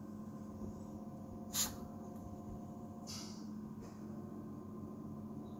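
A small puppy blowing sharply out through its nose once about a second and a half in, with a fainter puff about a second and a half later, over a steady low hum.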